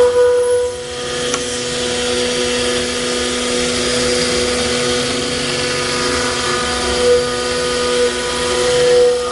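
CNC router running, its spindle giving a steady high whine over a noisy machine hum, swelling briefly a few times near the end.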